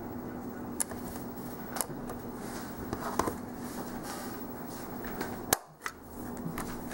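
Plastic back cover of a small portable media player being worked off by hand: scattered clicks and light plastic rubbing, the loudest click about five and a half seconds in as the cover comes free, over a faint steady hum.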